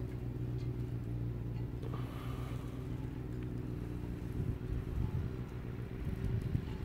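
A steady low machine hum, with wind buffeting the microphone in irregular gusts from about four seconds in.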